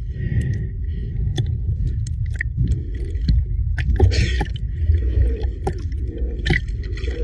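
Water sloshing and gurgling around a camera held half-submerged at the surface, with a steady low rumble and scattered small clicks; a louder splashing wash about four seconds in.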